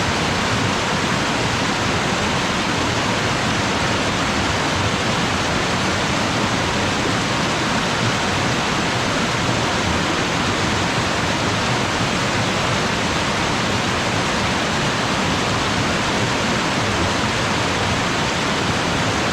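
Waterfall: water falling and splashing into its pool in a steady, even rush with no breaks.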